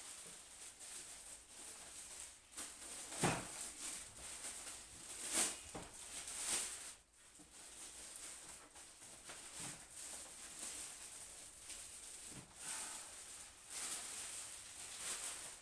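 Rustling and handling noises from packing material being moved about, with a few sharper knocks and crinkles.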